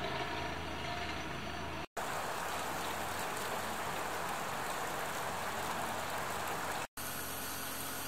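Steady outdoor background noise, an even rushing hiss with no distinct events. It drops out for an instant twice, about two seconds in and again near the end, and its character changes a little after each break.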